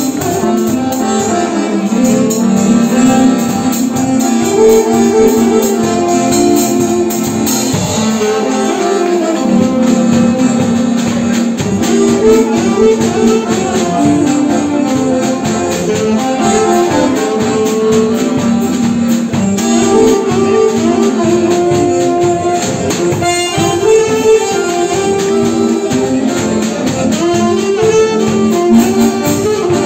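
A live band of saxophone, accordion and drum kit playing a tune together, the drums keeping a steady beat under the saxophone and accordion melody.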